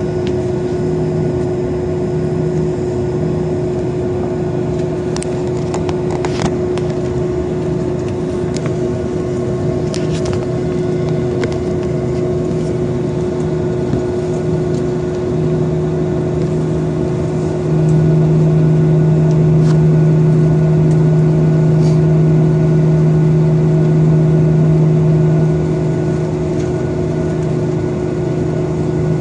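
Steady cabin hum and whine of a jet airliner on the ground with its engines idling. A deeper drone swells louder about eighteen seconds in and eases back about seven seconds later.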